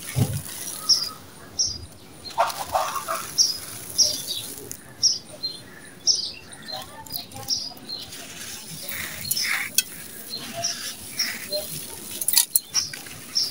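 Dry sand-cement pots crushed and crumbled by hand: gritty crunching with sand trickling through the fingers. Near the end white grit is poured into a pot with a quick rattling patter, and birds chirp in the background.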